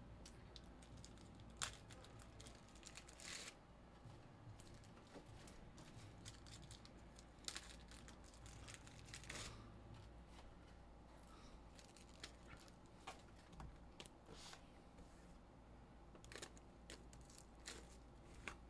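Faint, scattered handling noises of trading-card packs being torn open and shuffled: brief papery tears and rustles, with light clicks between them.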